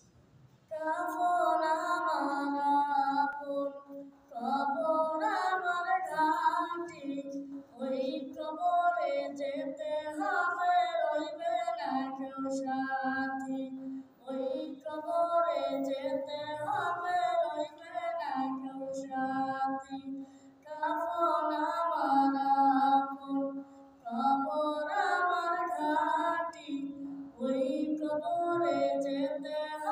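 A boy singing a Bengali Islamic song (gojol) solo and unaccompanied, close into a small clip-on microphone. He sings in phrases a few seconds long, with brief breaks for breath between them.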